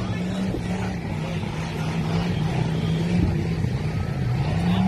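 Mud bog truck engine running hard in a mud pit: a steady drone that dips a little in pitch in the middle and climbs again near the end.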